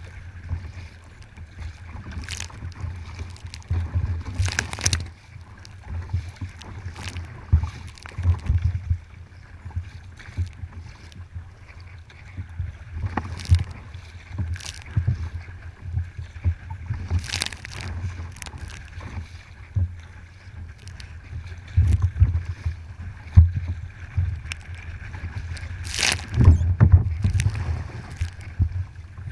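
Kayak paddling on open water: paddle blades splash in at irregular intervals every few seconds over water lapping against the hull, with a low rumble of wind on the microphone.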